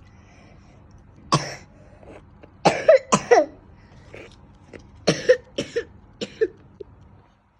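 A person with a sick cough coughing repeatedly: one cough, then a fit of several coughs in quick succession, then another run of coughs, some ending in a short hoarse voiced tail.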